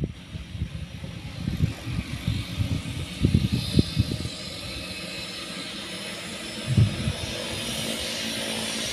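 Twin-engine turboprop plane taxiing, its engines' steady hiss growing louder from about halfway in. Irregular low thumps sit under the first half.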